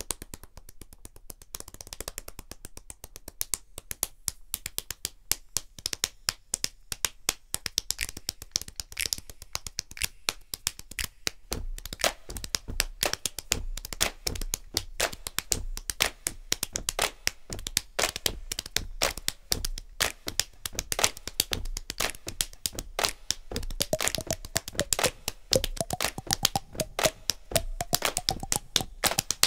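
Rapid rhythmic hand slaps on bald heads, played like bongos in a fast percussion groove. A low beat joins partway through, and a rising tone sounds near the end.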